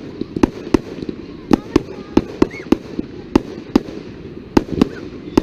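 Fireworks display: a rapid, irregular string of sharp bangs, roughly two or three a second.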